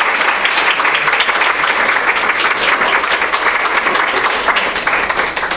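Audience applauding: a dense, steady patter of many people's claps that tails off near the end.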